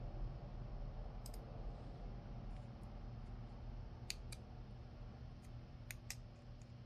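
Small sharp metallic clicks in pairs as a steel C-clip is pried at on the plug of a brass euro lock cylinder, three times over a few seconds.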